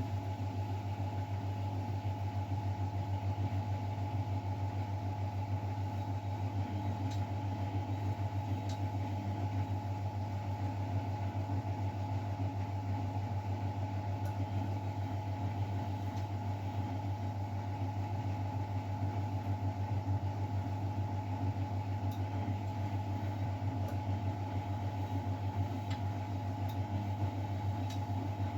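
Miele Novotronic W912 washing machine running steadily, a constant low hum with a few fainter higher tones above it and an occasional faint tick.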